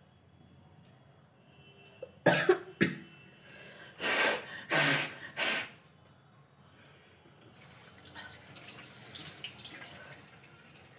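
A woman with a cough and cold coughing hard: a quick cluster of sharp coughs, then three longer harsh ones. A little past halfway, a tap starts running into a wash basin and keeps running.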